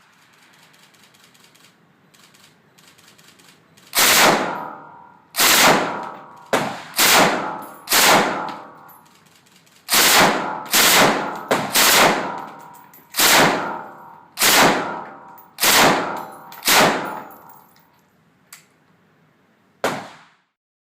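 Firearm fired in about a dozen single shots at an uneven pace, each report echoing as it dies away. A brief click comes near the end, then one last sharper, quieter report.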